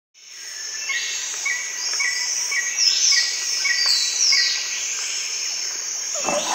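Jungle ambience fading in: birds calling and insects buzzing, with a short chirp repeated about twice a second and falling whistles above it. Near the end a deeper sound joins in.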